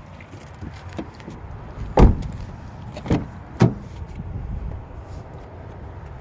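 Three heavy thumps of a 2016 Toyota Highlander's doors being shut, the first the loudest and the other two close together about a second later.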